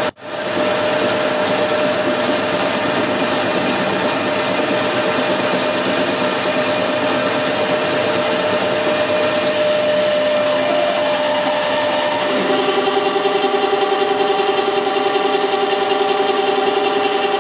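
Metal lathe running and turning a hardened steel stud, with the cutting tool traversing along it, giving a steady machine whine with one held tone. About twelve seconds in, a second, lower tone with a fast pulse joins and lasts until near the end.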